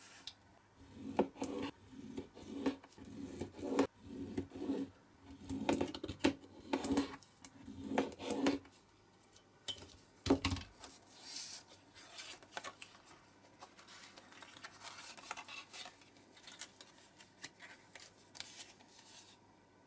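Craft knife cutting and scraping through thin printed card on a cutting mat, with a run of short scratchy strokes and the card tapping and rustling as it is handled. A dull thump about ten seconds in, then quieter scratching of the card being creased and folded into a small box.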